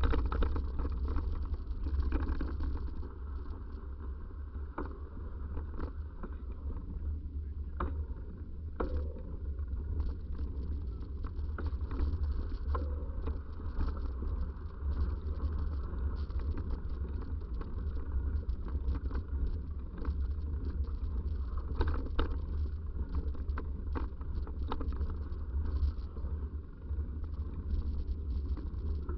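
Bicycle ride on a trail, heard from a camera on the bike or rider: a steady wind rumble on the microphone with frequent clicks and rattles from the bike over the rough ground.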